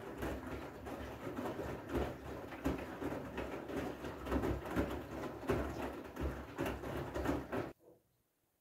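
Front-loading washing machine in its wash phase: wet clothes tumbling and sloshing in water as the drum turns, with an uneven run of soft thuds. The sound cuts off suddenly near the end.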